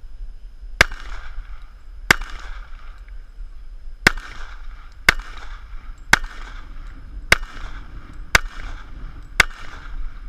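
Eight shots from a Springfield Armory TRP Operator .45 pistol, fired singly about a second apart with a longer gap after the second, each followed by a short echo.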